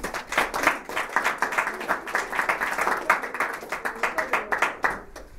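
A small audience applauding, many hands clapping quickly and unevenly, dying away about five seconds in.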